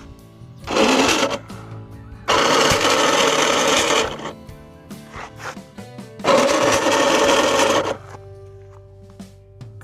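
Background music, cut by three loud, abrupt bursts of noise lasting about half a second, nearly two seconds and about one and a half seconds.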